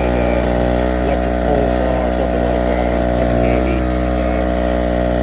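Aceup Energy 1200 W portable gas generator running at a steady speed after a warm start, a constant engine drone with no change in pitch.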